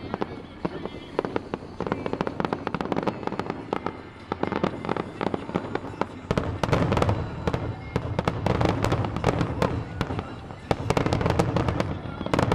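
Fireworks going off in rapid, dense crackles and pops. The sound grows louder and heavier from about six seconds in, and again about two seconds before the end.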